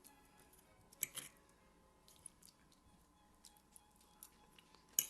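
Faint, sparse clicks and clinks of cutlery against plates during eating, the loudest about a second in and another just before the end.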